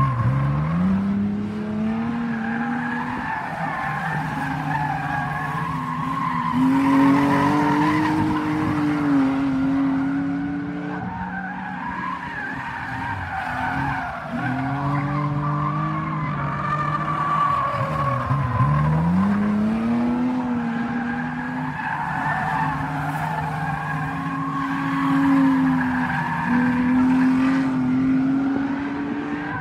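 Stock car engines racing round a short oval, several cars at once. The engine note sweeps up sharply as a car accelerates out of a bend, about three times, and holds high along the straights.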